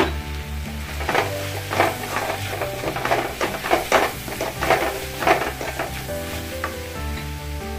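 Wooden spatula stirring a frying onion-tomato masala with ground coriander in an aluminium wok: a run of rough scraping strokes over a sizzle, from about a second in until about six seconds. Background music plays underneath.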